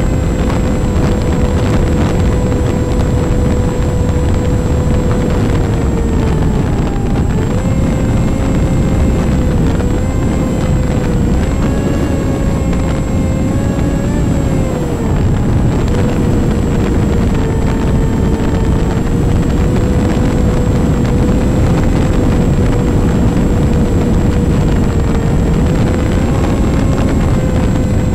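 Onboard sound of a Strix Stratosurfer RC plane in flight: its electric pusher motor and propeller whine at a steady pitch that sags and recovers several times, over heavy wind rush on the camera's microphone.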